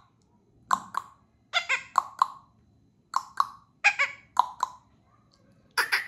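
Indian ringneck parakeet giving a series of short, sharp calls, many in quick pairs, about a dozen in all.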